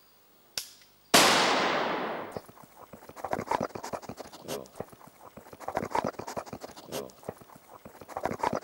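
A single hunting-rifle shot about a second in, ringing out and fading over about a second. It is followed by irregular rustling and crackling.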